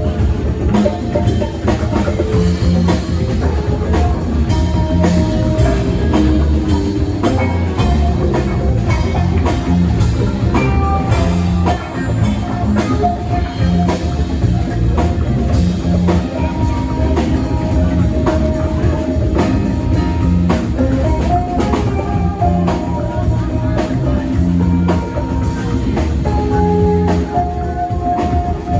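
Live rock band playing, with a drum kit keeping a steady beat under guitar.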